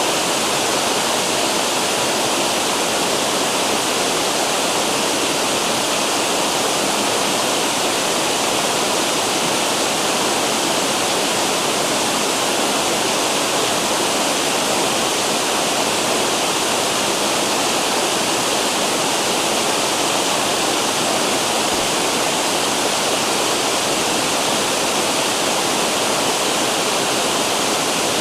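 River water rushing over cascading waterfalls, a steady unbroken roar of water.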